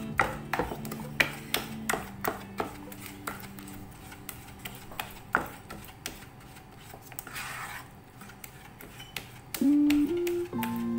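A silicone spatula stirring melted chocolate in a saucepan, knocking and scraping against the pan in irregular clicks. Background music plays, growing louder near the end.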